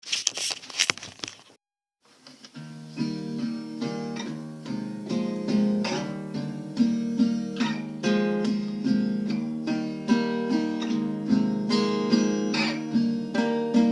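Acoustic guitar picking a steady pattern of notes as a song introduction, starting about two seconds in. A few sharp clicks and knocks come just before it.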